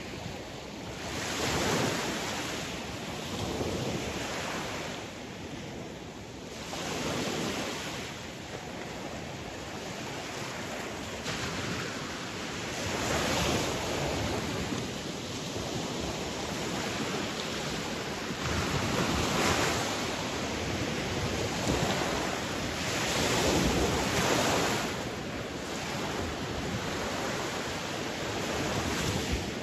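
Sea waves breaking and washing in, a steady rush of surf that swells and fades every few seconds.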